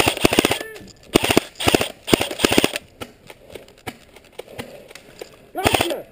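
Airsoft rifle firing short full-auto bursts, a rapid clatter of shots: a longer burst at the start, three or four quick bursts in the next two seconds, a pause of about three seconds, then another burst near the end.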